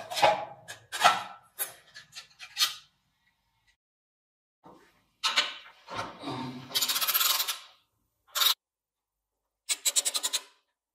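Rusty motorcycle front-end parts being handled and unscrewed: metal rubbing, scraping and knocking. Later, a screwdriver works at the fork top, with two fast runs of even clicks.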